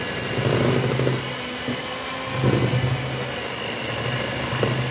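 Electric hand mixer (a Cosmos) running, its beaters churning a thick minced-fish paste for tekwan in a plastic bowl. It keeps a steady motor whine, and the sound swells heavier three times, about two seconds apart.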